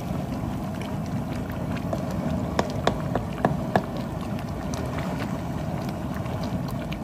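Large propane cooking burner running with a steady low rush of flame under a big aluminium pot of simmering meat. A handful of sharp clicks come around the middle.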